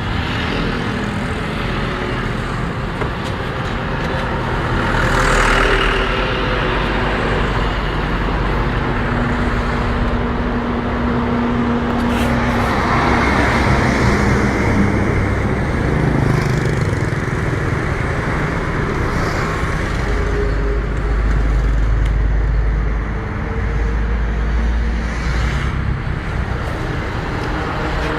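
Loud, steady engine noise that swells a little at a few points.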